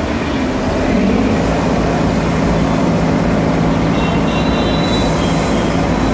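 Heavy machinery running steadily with a loud, continuous rumble, and a faint high whine joining about four seconds in.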